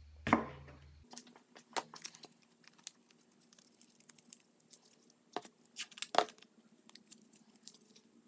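Blue painter's masking tape being pulled off the roll, torn and handled: scattered crackles and short tearing sounds, the loudest about six seconds in.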